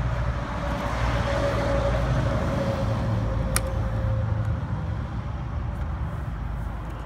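Vehicle traffic going by: a low rumble that swells about a second in and fades again after about four seconds, with a faint steady tone inside it. A single sharp click about three and a half seconds in.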